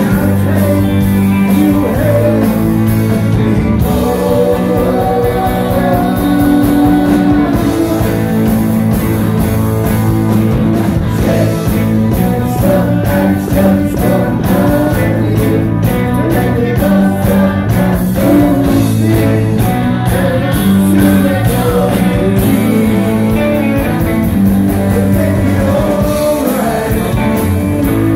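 Rock band playing live, loud and dense: electric guitar, bass and drums with a singing voice over them.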